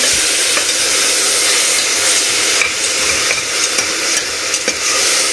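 Sliced onions sizzling steadily in hot oil in a pressure-cooker pan as a spatula stirs them. From about halfway through come scraping clicks of the spatula against the pan.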